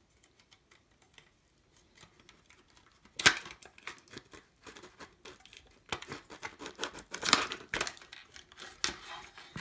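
Clicks, scrapes and rattles of a server power supply's sheet-metal case and plastic insulating sheet being handled as the circuit board is worked loose. There is a sharp snap about three seconds in, then a busier run of clicks and scrapes in the second half.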